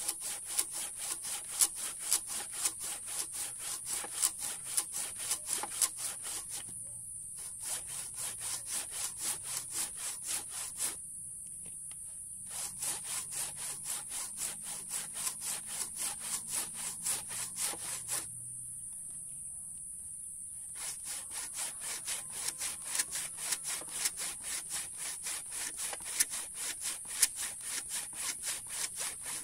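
Handsaw cutting through very hard mangosteen wood with rapid back-and-forth strokes, about three a second, in four runs broken by short pauses.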